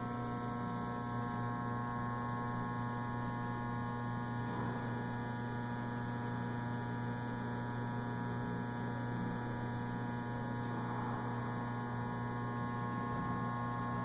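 Steady electrical mains hum, a constant drone made of several steady tones, with only faint passing noise behind it.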